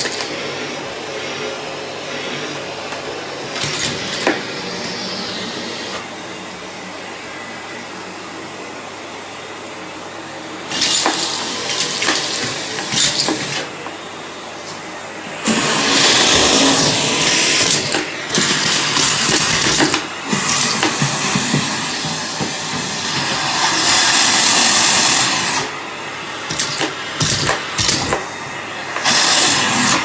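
Miele C3 canister vacuum cleaner running steadily. About halfway through its suction turns much louder and rushing, with dips, and sharp clicks and rattles as Lego bricks are sucked up off the tiled floor.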